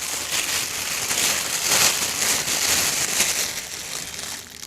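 Plastic packaging crinkling and rustling steadily as an accessory is unwrapped by hand.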